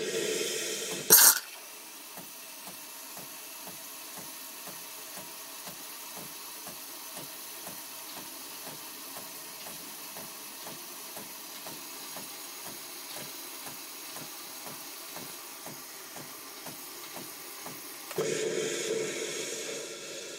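Nespresso Lattissima's milk frother running. It starts with a hiss and a sharp click about a second in, then settles into a steady frothing noise that pulses about three times a second while milk froth pours into the cup. Near the end a louder hiss sets in and then fades.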